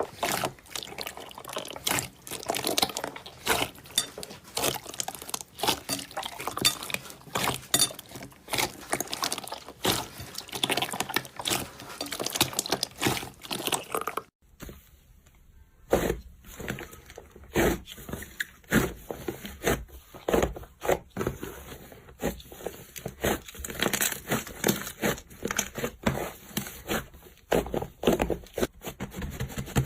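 Slime being squished and stretched by hand: a dense, irregular run of wet clicks and pops, with a brief gap about halfway through.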